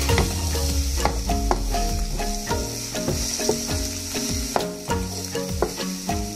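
Diced celery and spring onion sizzling in oil in a nonstick frying pan while a wooden spatula stirs them, under background music with a steady beat.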